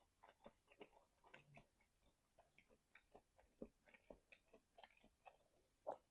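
Faint close-miked chewing: soft, irregular wet clicks and smacks of a mouth working on food, several a second.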